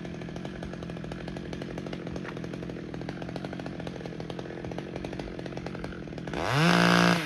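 Two-stroke chainsaw idling steadily, then revved sharply about six seconds in: its pitch climbs, holds high and loud for under a second, and drops back near the end.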